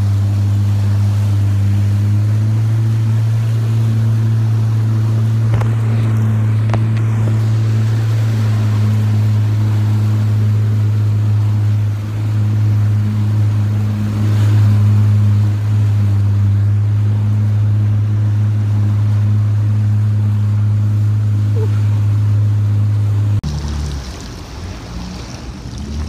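Jet ski engine running at a steady high speed, a loud constant drone with wind and water rush over it. About 23 seconds in, the throttle comes off and the engine drops to a lower, quieter note as the craft slows.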